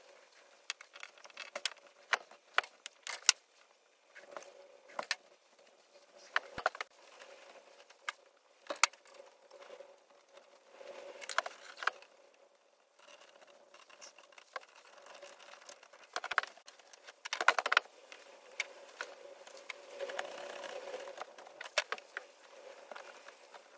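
Hands working electrical wire into an open metal breaker panel: irregular clicks, taps and rustles of wires and parts being handled, the loudest cluster about 17 seconds in. A faint steady hum runs underneath.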